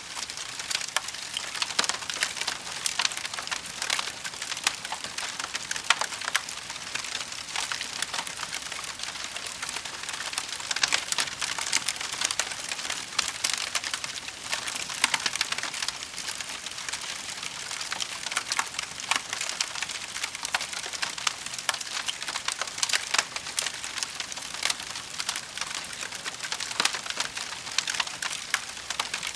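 Wood fire in a fireplace crackling steadily: a dense stream of small snaps and pops over a soft hiss.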